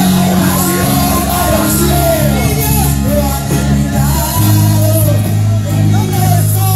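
Live worship band playing loud music on drums, electric guitar and keyboard, with a woman singing and people shouting over it. The low bass note drops to a deeper held note about four seconds in.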